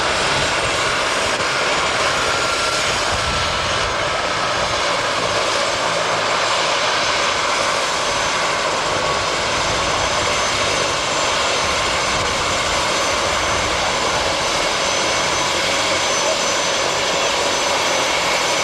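Aérospatiale Écureuil helicopter running on the ground, its turbine and rotor making a steady, loud rush with a thin high whine.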